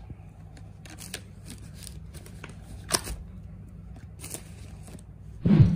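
Cardboard fast-food burger box being handled and opened, with scattered light taps and crinkles from it and the plastic carrier bag over a low steady hum. A sharper click about three seconds in, and a brief louder sound near the end.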